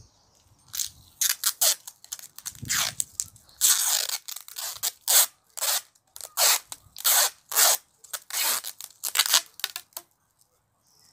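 Adhesive tape being pulled off its roll in a quick series of short, high, noisy strips, about fifteen pulls in a row, then stopping shortly before the end.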